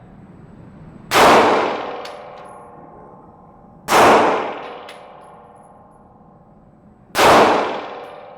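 Three handgun shots, roughly three seconds apart, each very loud and sharp with a long echoing decay. A steady hum runs underneath.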